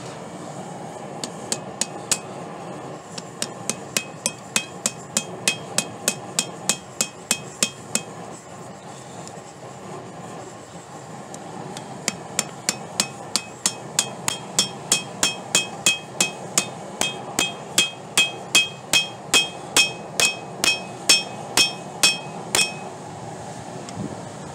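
Hand hammer striking the jaws of blacksmith tongs on a Doyle anvil, each blow ringing: a few blows, then a steady run of strikes about three a second, a pause of a few seconds, and a longer, louder run that stops shortly before the end.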